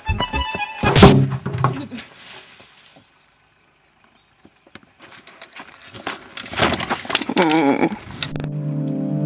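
A sudden loud crash about a second in as a person runs into a plastic bin and knocks it over, fading over the next two seconds, heard over the tail end of music. Later come scattered knocks, a wavering pitched sound, and near the end a steady held chord of tones.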